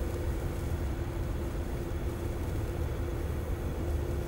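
Steady low urban background hum with a constant mechanical drone running through it; no sparkler crackle is heard.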